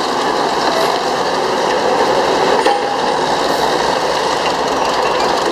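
Northwest Model 6 cable shovel working, its diesel engine and mechanical gear and clutch train running steadily under load as the machine swings and lowers its dipper.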